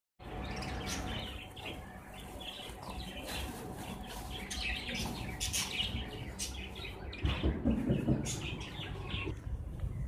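Small birds chirping over and over, with the crinkle of a plastic sack and the rustle of millet grain being scooped into a clay bowl; the handling noise gets louder for a moment about seven seconds in.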